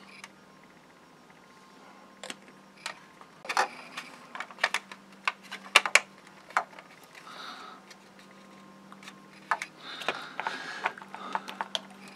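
Irregular light clicks and taps of hard plastic model-kit parts, the fuselage halves of a 1/72 SR-71 kit, being handled and pressed together by hand. They come in two flurries, a few seconds in and again near the end, over a faint steady low hum.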